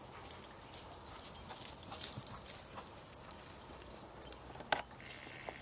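Dogs running through long grass: light rustling and soft pawfalls, with a sharp click near the end and a faint steady high-pitched tone behind.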